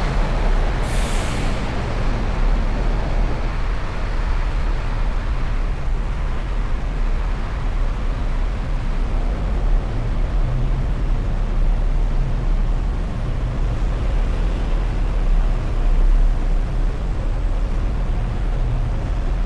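Steady low rumble of a vehicle driving in city traffic, with a short hiss about a second in.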